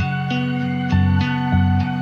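Instrumental background music: plucked notes over a repeating low bass line.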